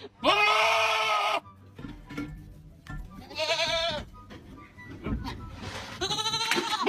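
Goat bleating loudly three times: a long call, a shorter one with a wavering pitch, and a third starting near the end.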